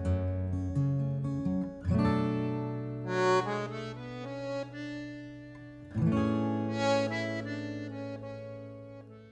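Instrumental background music: sustained chords that change about every four seconds, fading out near the end.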